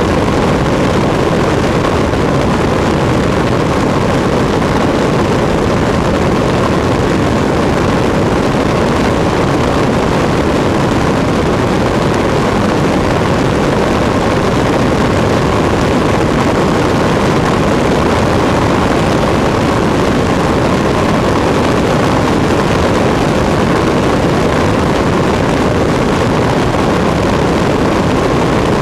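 Cessna 152's four-cylinder Lycoming engine and propeller running steadily in cruise flight, mixed with rushing wind, heard from a camera mounted outside on the fuselage.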